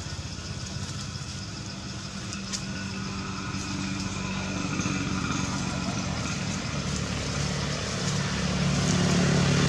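A motor engine running steadily at low revs, getting louder near the end.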